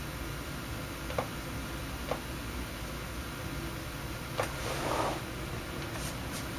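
A few light clicks and a short scraping rustle from small tools and parts being handled on a workbench, over a steady low hum.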